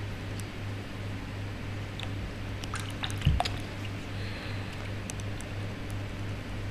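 Water splashing and sloshing in a plastic tub as a hand-held goldfish thrashes, with a few drips and clicks and one thump a little over three seconds in. A steady low hum runs underneath.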